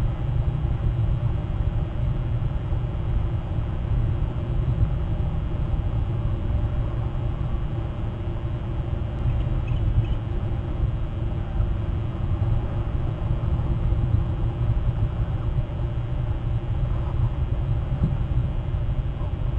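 Steady low rumble of outdoor background noise picked up by a nest camera's microphone. A faint short high sound comes about halfway through.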